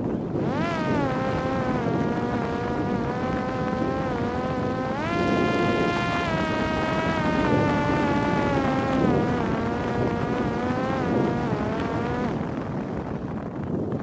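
Parrot Disco's brushless electric pusher motor and propeller whining in flight. The pitch jumps up about five seconds in as throttle is added, then sags slowly until the motor cuts off about twelve seconds in, leaving only wind rushing over the microphone.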